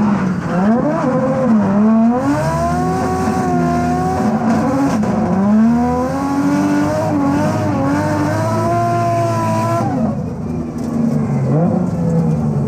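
Turbocharged six-cylinder drift car engine heard from the cockpit, revving up and down sharply as the throttle is worked, over a steady tyre hiss. The car is running with a disintegrated wastegate diaphragm, so the ECU is cutting power to hold boost down. About ten seconds in the tyre hiss stops and the engine settles to a lower, steadier note.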